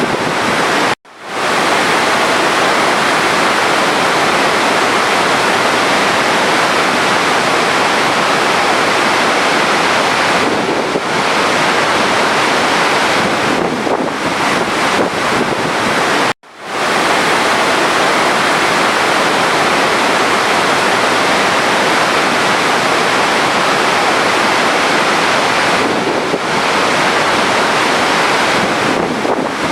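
Steady rushing of running water, a looped recording that cuts out for an instant about a second in and again about halfway through, each time swelling back up.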